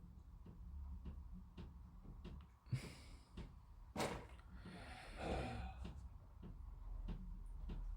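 Quiet room with a person breathing audibly, a few short puffs of breath, and faint small clicks and taps of handling.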